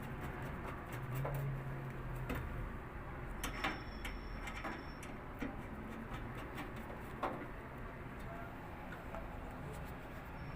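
Scattered small metallic clicks and taps as screws and the sheet-metal top cover plate are fitted onto a window air conditioner, over a faint steady low hum.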